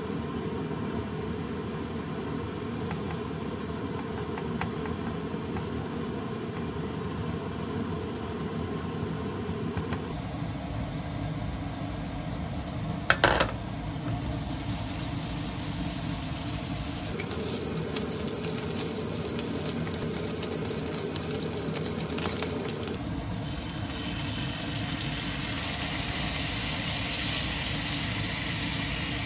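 Home kitchen cooking: a spatula working egg in a nonstick pan over a steady background hum, a brief loud clatter about 13 seconds in, then oil in the hot pan sizzling with a rising hiss from about 23 seconds.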